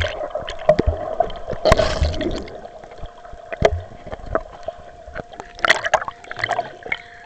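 Lake water sloshing and gurgling around a camera as it dips under and breaks the surface, with scattered knocks against the camera and splashing rushes about two seconds in and again near six seconds. A faint steady hum runs underneath.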